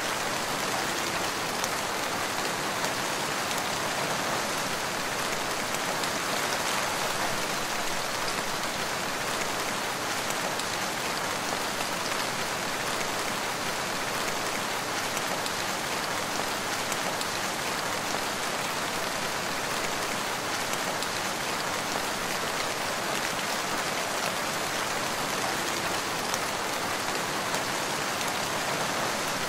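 Steady rain falling, an even dense patter of drops that holds at the same level throughout.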